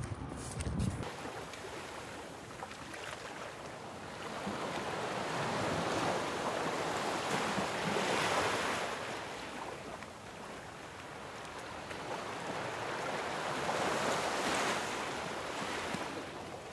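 Sea waves breaking and washing up on a beach, swelling twice, with wind. A brief rustle and a few knocks in the first second.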